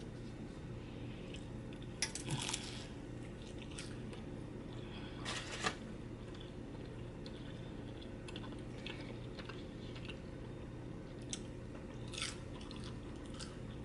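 Close-up chewing of a crunchy cheese quesadilla, with a few louder crackly bites, the strongest about two seconds and five and a half seconds in, over a faint steady hum.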